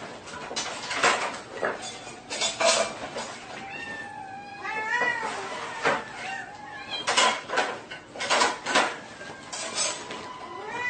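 A cat meowing, with one drawn-out call that rises and falls in pitch about halfway through and another near the end, amid repeated sharp clattering knocks.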